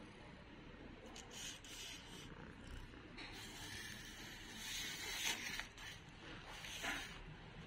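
A cat brushing its fur and nose against the phone right at the microphone: soft rustling and scraping noises, heaviest from about three to six seconds in.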